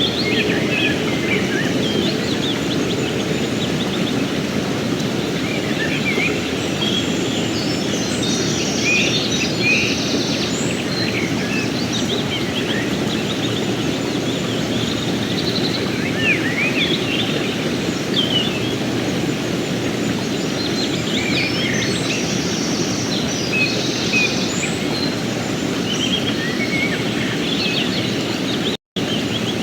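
A mountain stream rushing steadily, with small birds chirping and calling over the water throughout. The sound cuts out for a split second near the end.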